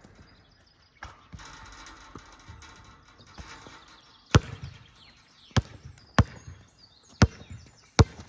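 A basketball bouncing hard on a court, five sharp bounces at uneven intervals starting about halfway through.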